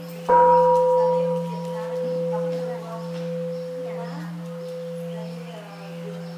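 Large Buddhist standing bowl bell struck once with a padded striker about a third of a second in, then ringing on with a deep hum and a clearer overtone that fade slowly.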